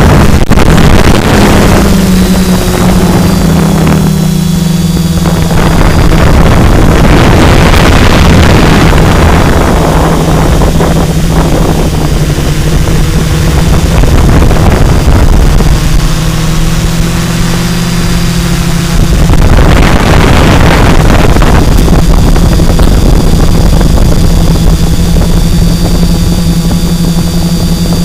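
Four RCX H2214 950KV brushless motors driving 10x4.5 propellers on a quadcopter, heard from its onboard camera in flight: a loud, steady buzzing hum whose pitch shifts with throttle, with a faint high whine above it. Several times the hum swells with a rush of air noise.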